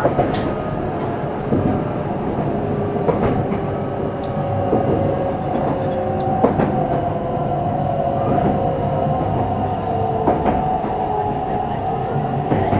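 Meitetsu 300-series electric train (set 317F) running at speed, heard from inside the carriage: a steady traction-motor whine over wheel rumble, with sharp clicks from rail joints every second or two.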